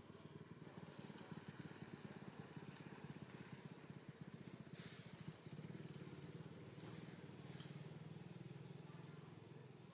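Faint, steady low drone of a small engine running in the background, its tone shifting slightly about halfway through.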